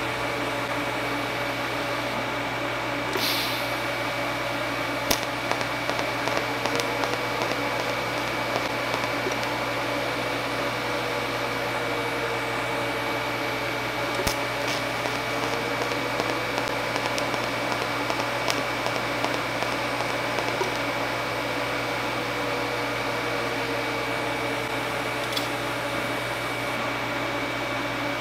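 TIG welding on a steel test piece: the arc is struck with a sharp click about five seconds in, then crackles and hisses as filler rod is fed, and it is struck again about halfway through. A steady hum and a faint high whine run underneath.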